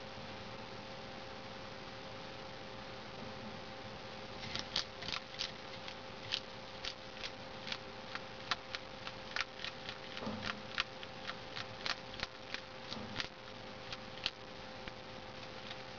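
Bearded dragon chewing a feeder worm: crisp, irregular clicking crunches, several a second, starting about four seconds in. A faint steady hum runs underneath.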